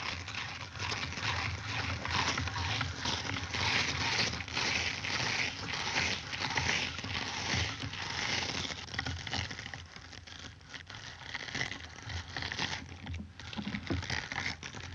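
Cartoon sound effect: a continuous rushing hiss full of rapid, irregular clicks, rising and falling in loudness.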